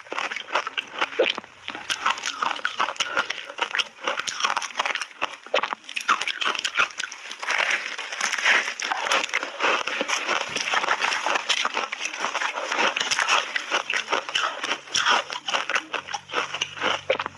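Layered ice being chewed and crunched in the mouth: a dense, continuous run of crisp cracks and crackles.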